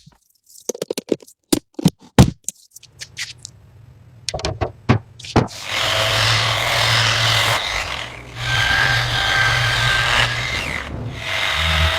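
A run of sharp knocks and clicks. From about five seconds in, a steady hissing whir like a power tool's takes over, dipping briefly twice.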